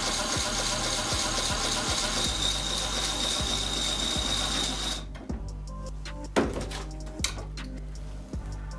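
Drill spinning a piston-ring filer's grinding wheel, grinding the end of a piston ring to set its end gap. It cuts off suddenly about five seconds in, followed by a few sharp clicks of the ring and tool being handled.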